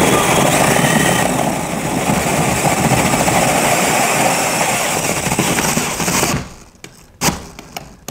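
Cordless drill driving a hole saw through a wall, running hard under load with a rough, grinding cut. It stops about six seconds in, and there is a short burst of drilling about a second later.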